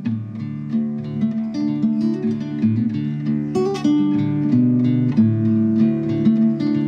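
Background music: acoustic guitar strummed and picked in a steady rhythm.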